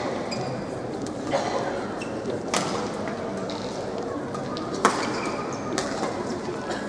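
Badminton rackets striking a shuttlecock during a rally, four sharp hits about one to two seconds apart, the loudest near five seconds in, with short squeaks of shoes on the court mat over the steady murmur of a large sports hall.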